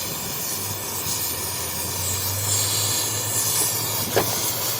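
Steady hissing noise with a low hum beneath it, and one short click about four seconds in.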